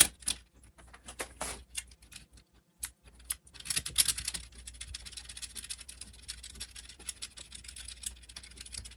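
Small metal parts of a jukebox mechanism clicking and scraping under hand tools. A few separate clicks are followed, about three and a half seconds in, by a continuous fine rattling and scratching.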